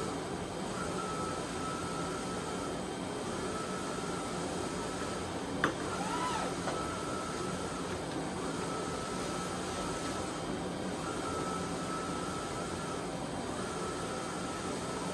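Wide-format roll laminator running as printed perforated window vinyl feeds through its rollers: a steady mechanical hum, with a high tone that switches on and off about every two and a half seconds. A single sharp click comes about six seconds in, followed by a short squeak that rises and falls in pitch.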